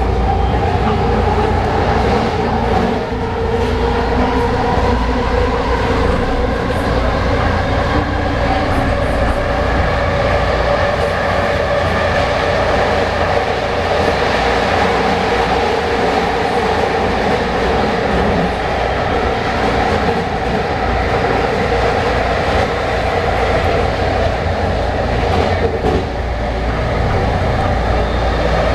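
Vancouver SkyTrain Expo Line train heard from inside the car as it runs along the guideway. Wheels on the rails make a steady running noise, and the linear induction motors give a steady pitched whine above it, with a light clickety-clack of the rail joints.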